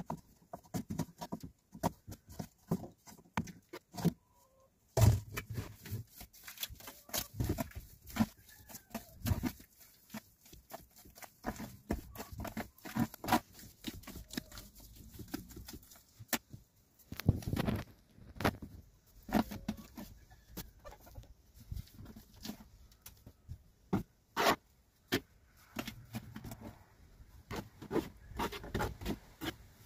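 Irregular clicks, knocks and scrapes of hand work in a van cab: cups and tools set down on the plastic dashboard and wet plaster smoothed into the dash tray with a small blade.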